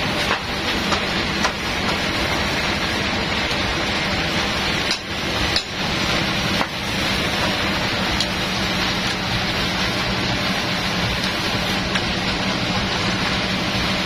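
Sawmill machinery running steadily, a dense noise with a low hum, with a few sharp knocks about midway.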